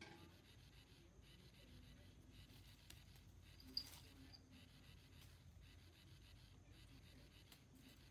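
Faint rustling of a small dog's paws scampering through dry fallen leaves, near silence otherwise, with one short, sharp high click a little under four seconds in.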